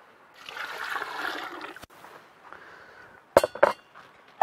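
Water poured from a bowl into a steel stockpot of chicken soup, splashing for about a second and a half. A little past three seconds in come two sharp clangs.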